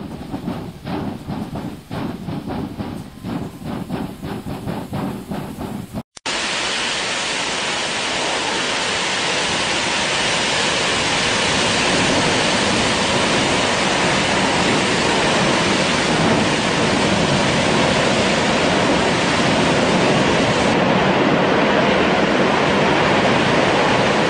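A steam locomotive chuffing in a quick, even rhythm; then, after a cut, the loud, unbroken hiss of a drilling-rig well blowout, high-pressure gas jetting up through the derrick.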